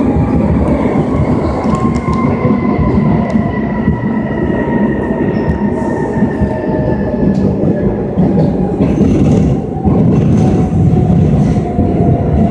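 Madrid Metro 5200-series train running in a tunnel: a loud, steady rumble of wheels on track with a motor whine that slowly falls in pitch as the train slows.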